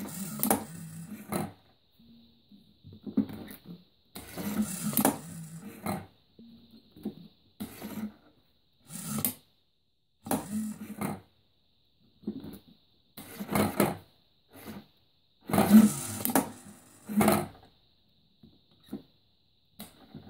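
Homemade useless box worked over and over: a toggle switch is flipped, a small servo whirs as the hinged wooden flap lifts and the arm knocks the switch back, and the flap clacks shut, in about a dozen short bursts with pauses between. A faint steady high whine runs under it, typical of the EL wire's inverter.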